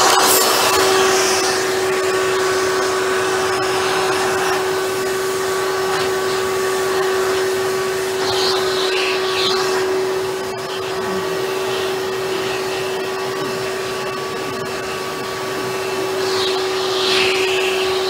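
Hoover upright vacuum cleaner running with its hose and a small attachment tool drawn over fabric upholstery: a steady motor whine over the rush of suction, with brief swishes of air about halfway through and again near the end as the tool moves over the cloth.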